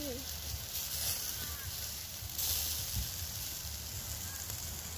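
Meat shashlik and sliced potatoes on skewers sizzling over charcoal on a grill, a steady hiss that swells briefly about halfway through. Wind rumbles on the microphone underneath, and faint voices are heard near the start.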